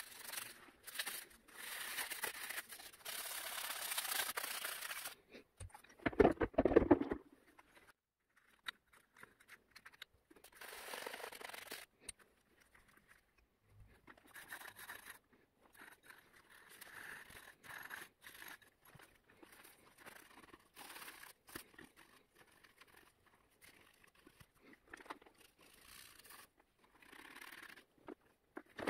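A stiff brush scrubbing carbon deposits off a soapy metal EGR valve. The scrubbing comes in bursts with pauses, and about six seconds in there is a louder clatter of about a second as the part is handled.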